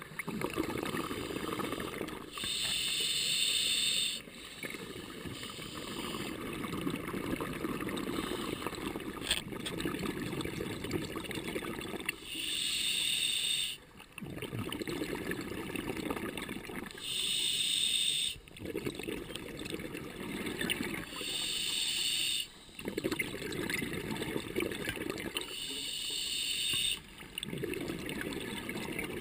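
Scuba diver breathing through an open-circuit regulator underwater: about five hissing inhalations, each a second or two long, with long stretches of exhaled bubbles gurgling between them.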